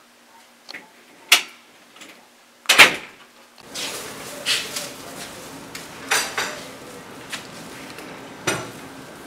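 Two sharp knocks about a second and a half apart, the second the louder, then a steady low background hiss that comes in suddenly, with a string of lighter clicks and taps over it: door and footstep noises as someone goes through glass entrance doors.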